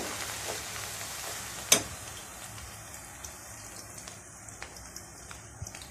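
Garlic deep-frying in plenty of hot oil in a karahi: a steady sizzle that slowly fades, with one sharp click about two seconds in and a few faint ticks later.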